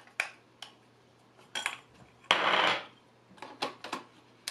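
Clicks and clatter of a camera body and a Nikon 300 mm f/4 telephoto lens being handled on a tabletop while the lens is fitted to the camera, its rear cap taken off and set down. A series of short sharp clicks, with one louder rasp lasting about half a second halfway through.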